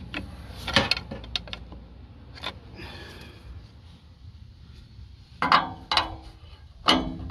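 Sharp metal knocks and clanks of a hand tool tapping against metal parts under a 4x4. They come irregularly, and the loudest three, in the last couple of seconds, each ring briefly.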